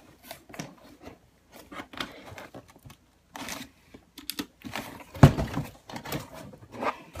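Handling noise on a cramped desk: irregular clicks, knocks and short rustles as a desk microphone and a cardboard box are moved about, with one loud thump about five seconds in.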